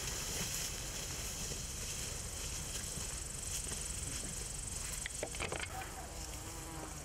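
Outdoor field ambience: a steady rustling hiss of tall dry grass as soldiers walk through it, over a low rumble, with a few short clicks a little after five seconds in.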